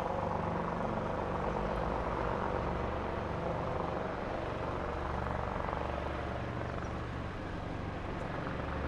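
A formation of five Eurocopter EC120 Colibri helicopters flying by: steady rotor and turbine noise, heaviest in the low end.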